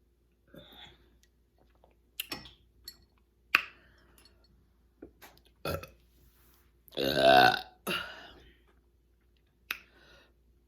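A person burping: one loud, low burp lasting about half a second around seven seconds in, with shorter sounds and a few sharp clicks before and after it.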